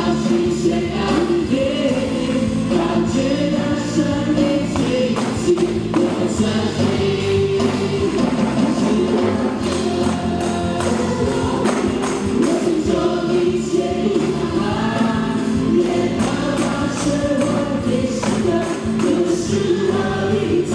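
A church worship team of mixed male and female voices singing a Mandarin praise song together into microphones, backed by a live band with a steady percussion beat.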